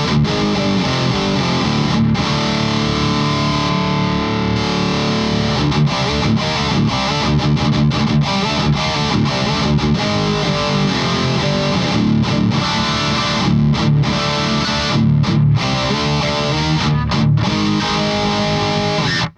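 Electric guitar played through an overdrive pedal into an amplifier, a distorted rhythm riff with fast picked chugs and held chords that cuts off abruptly at the end.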